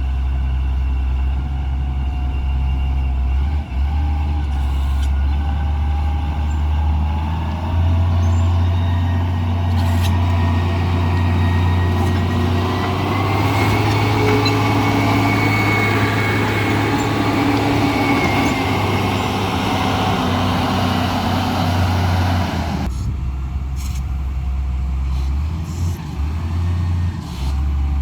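Heavy diesel vehicle engine working hard, a deep steady rumble with a higher whine that rises through the middle and cuts off suddenly near the end.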